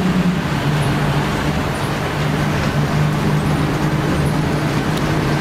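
A 1990 Flxible Metro B transit bus's Detroit Diesel 6V92TAC two-stroke V6 diesel engine running steadily under way, heard from on board, with constant road and tyre noise. The engine note dips slightly about half a second in, then holds steady.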